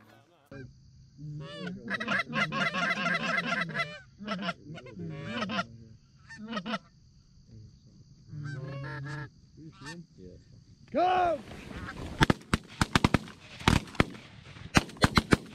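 A flock of Canada geese honking as they circle in low, calls overlapping in bursts. About twelve seconds in comes a rapid volley of sharp shotgun blasts.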